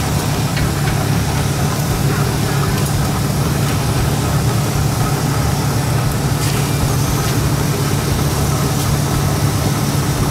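A steady low mechanical hum of a running motor, with a few faint clicks over it.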